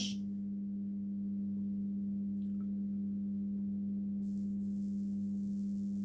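Microwave oven transformer (230 V, 50 Hz) humming steadily under mains power. About four seconds in, a faint high crackling hiss joins it: small sparks jumping between the multimeter probe tip and the transformer's high-voltage terminal.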